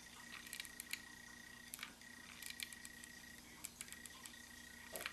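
Faint scattered clicks from a hot glue gun being worked, over a steady high-pitched whine that drops out briefly about midway, then returns.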